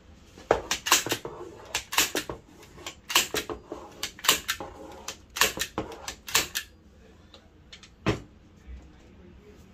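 A handheld framer's nailer firing pins into the frame edge to lock the backing board in place: some twenty sharp snaps in quick runs of two to four, then a single last snap about eight seconds in.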